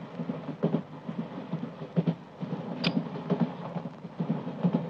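Train running, a low rumble with repeated knocking clatter of the wheels, heard from inside the compartment. A brief higher squeak or click about three seconds in.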